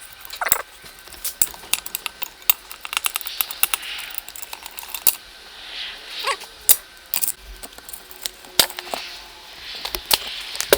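Small metal parts clinking and rattling as they are handled, in many irregular sharp clicks with a few softer scraping swells between them.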